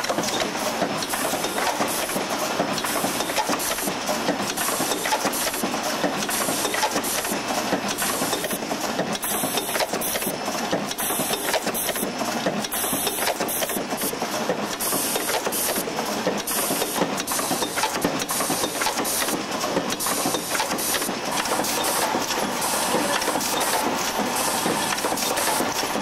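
Automated assembly machine with pneumatic actuators running: a steady mechanical clatter with air hiss and many small rapid clicks.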